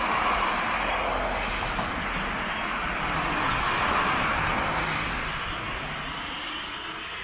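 Road traffic: cars passing on a road, a tyre-and-engine rush that swells twice and then slowly fades.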